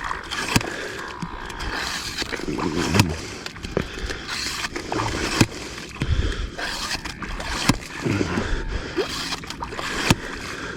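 A yabby pump being worked in wet sand: wet splashing and sloshing as sand and water are sucked up and pumped out, with a sharp knock about every two and a half seconds.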